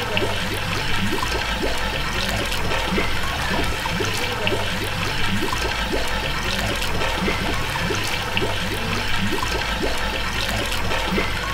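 Water gurgling and splashing steadily, with quick bubbling chirps throughout.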